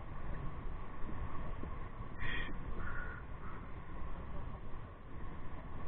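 Night-time street ambience with a steady low rumble of traffic and people, broken by one short, harsh high-pitched call about two seconds in.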